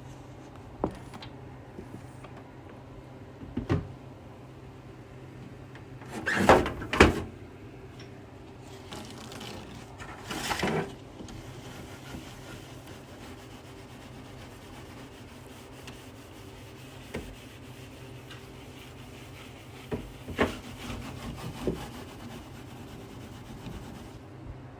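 Scattered knocks and brief rubbing and scraping of things being handled in kitchen cupboards, over a steady low hum. The loudest knocks come about a third of the way in.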